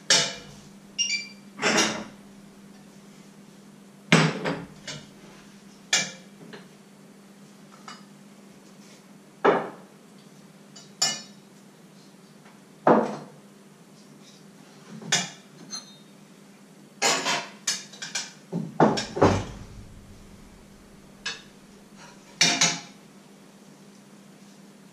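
Metal pots, lids and utensils clattering and knocking as food is handled in a pot, in irregular sharp strikes every second or two, sometimes several in quick succession, over a faint steady hum.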